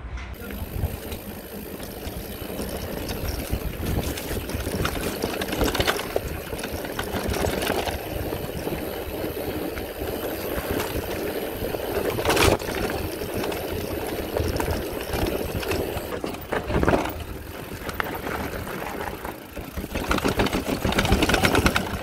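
Electric mountain bike being ridden down a dirt trail: a continuous rough rumble of tyres and wind noise with fast rattling from the bike, and a couple of sharper knocks over bumps.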